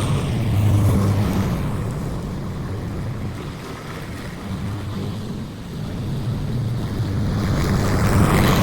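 Gasoline lawn mower engine running steadily, its loudness swelling and fading slowly as it moves across the yard.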